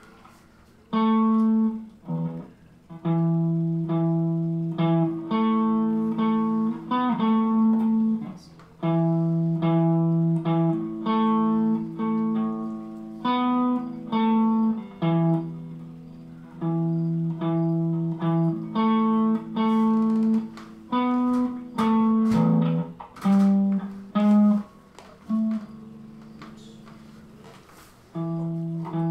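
Guitar music: plucked chords and single notes in short phrases with brief pauses between them.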